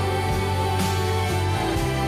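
Live band music with acoustic guitars playing, near the end of a song.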